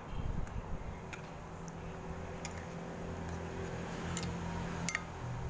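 A utensil stirring a wet fish-and-vegetable batter in a glass bowl, ticking lightly against the glass about seven times at an uneven pace.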